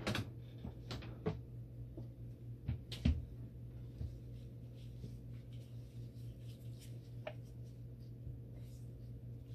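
Tools clattering in a desk drawer, then the drawer pushed shut with a knock about three seconds in, followed by a few lighter clicks of handling. A steady low hum underneath.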